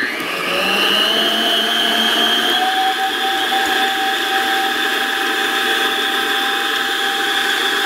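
Electric stand mixer running, its beater creaming butter with egg yolks and sugar. The motor starts with a whine that rises in pitch over the first couple of seconds as it comes up to speed, then runs steadily.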